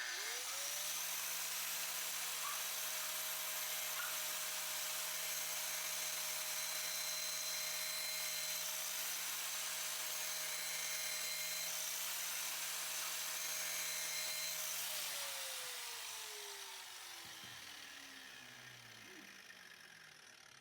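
Electric grinder running for a chipper/shredder blade sharpening: the motor spins up quickly, runs at a steady pitch with a hiss over it for about fifteen seconds, then is switched off and its whine falls away slowly as it winds down.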